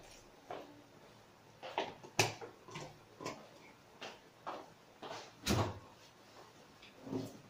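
Scattered knocks and clicks of kitchen containers and utensils being handled and set down, with a sharp knock about two seconds in and a heavier thump about five and a half seconds in.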